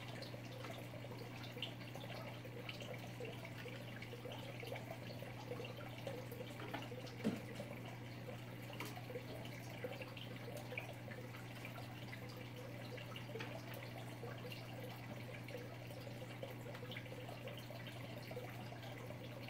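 Water trickling and dripping over a steady low hum, with one louder click about seven seconds in.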